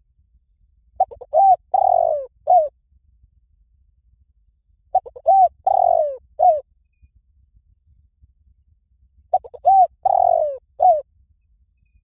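Spotted dove cooing: three phrases about four seconds apart. Each is a few quick short notes, then a long falling coo and one short closing note.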